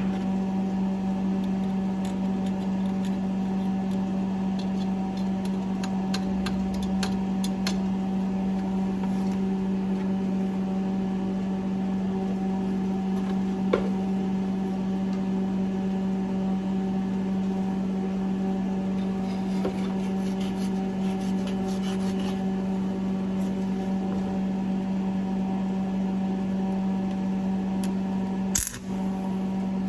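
Stick welder running a 3/32 rod: a steady electrical hum under a crackling arc as weld is laid onto a stripped engine mount bolt to give it something to grip. The hum cuts off near the end.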